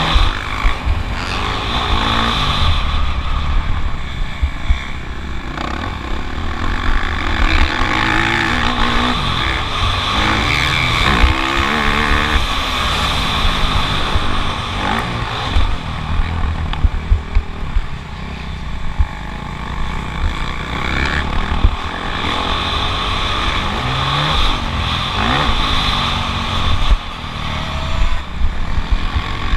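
Motocross bike engine racing, its pitch repeatedly rising and falling as the throttle is opened and shut through the corners and straights, with a steady rumble of wind on the camera microphone.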